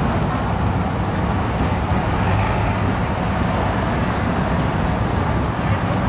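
An engine running steadily, a dense, even rumble with no change in speed.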